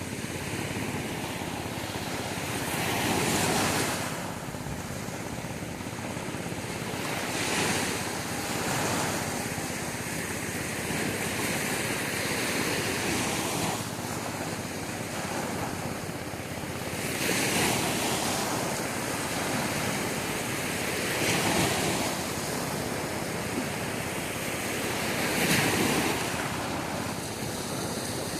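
Sea waves breaking on a beach, a steady surf wash that swells as a wave breaks about every four seconds.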